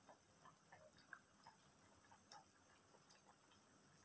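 Faint, irregular small pops and ticks, a few a second, from a pot of sour fish soup simmering on the stove.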